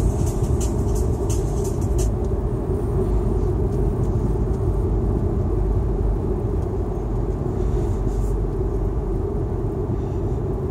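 Steady road and engine rumble of a car driving at speed, heard inside the cabin. A run of light ticks stops about two seconds in.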